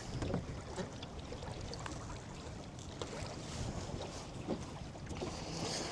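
Steady low rumble of wind and water around a small boat on a river, with a few faint clicks and knocks.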